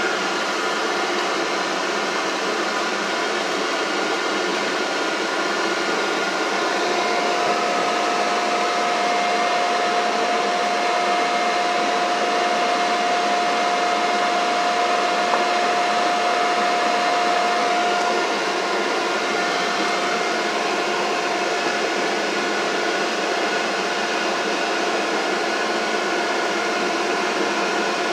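CTA 3200-series rail car heard from inside while running at speed: a steady rush of wheel and track noise with a motor whine. A clearer steady tone holds from about a quarter of the way in until past the middle.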